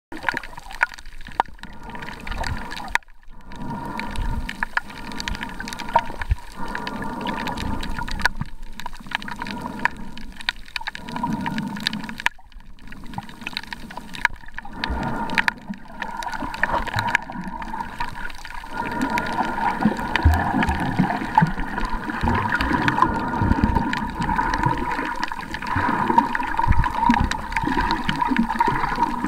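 Underwater noise heard through a submerged camera's microphone: muffled rumbling and sloshing of water with a faint steady hum underneath. The sound cuts out briefly several times in the first half and gets louder and busier after about nineteen seconds.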